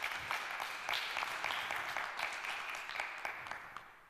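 Audience applauding, many hands clapping irregularly; the clapping thins and fades toward the end, then cuts off abruptly.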